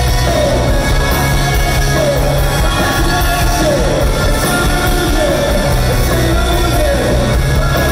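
Live rock band playing loudly, with electric guitars, bass and drums and the singer's voice, heard from within the audience. A falling figure in the middle of the range repeats about once a second.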